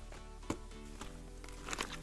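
Background music, with a sharp click about a quarter of the way in and a short crinkle of card pack wrappers near the end.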